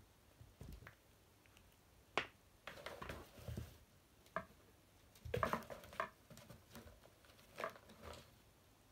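Scattered light knocks, scrapes and rustles as a kitten bats at and pushes a cardboard box across a wooden floor, with soft paw pats on the boards; the busiest stretch comes about five to six seconds in.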